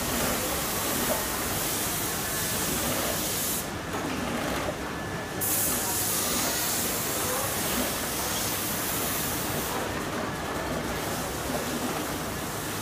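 Industrial mattress zipper sewing machine running steadily, a continuous hissing whir. The high part of the hiss drops away twice for a second or so, about four and ten seconds in.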